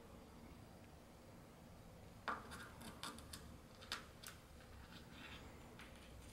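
A cat rubbing and nosing against the edge of a door: faint scratchy rustles and light ticks, bunched together about two to four seconds in, with one more tick near the end.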